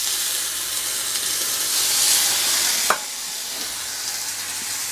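Tempeh slices sizzling in a hot griddle pan as lemon juice is poured over them; the sizzle swells around two seconds in. A light click sounds just before three seconds.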